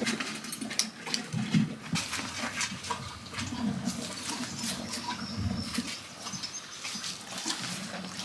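A horse munching its feed close by, with irregular crunching, snuffling and rustling of straw.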